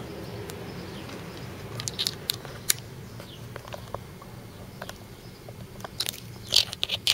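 Sharp metal clicks and knocks from handling the compression gauge hose and snapping its brass quick-connect coupler onto the adapter in the spark plug hole: a few about two seconds in and a cluster near the end, over a steady low hum.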